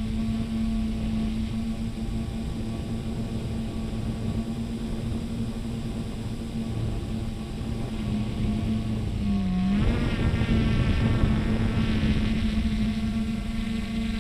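Traxxas Aton quadcopter's motors and propellers humming steadily in flight, heard from the onboard camera with air rushing past. About two-thirds through, the pitch dips briefly and comes back up, and the rushing then gets louder.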